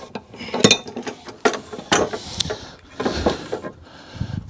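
Ratchet wrench clicking in short runs as it tightens the blade bolt on a mower deck spindle, mixed with irregular metal clanks and a brief scrape near the end.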